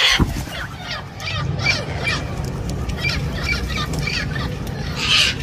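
Turquoise-fronted amazon parrots calling in short, repeated squawks while feeding. There is a flurry of flapping wings at the start and another near the end.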